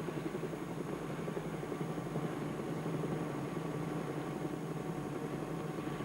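Helicopter engine and rotor drone heard inside the cabin, steady with a fast flutter.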